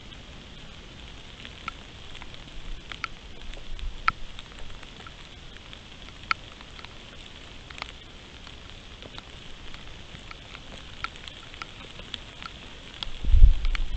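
Rain falling steadily, with scattered sharp ticks of single drops, and a loud low rumbling thump near the end.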